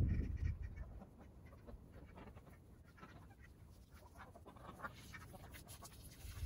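Quiet yard ambience: faint scattered bird chirps and small clicks, after a low rumble dies away in the first second.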